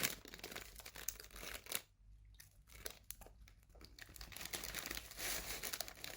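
Crinkling and rustling of a bakery pastry's paper wrapping as it is handled, a dense run of small crackles that thins out about two seconds in and grows fuller near the end.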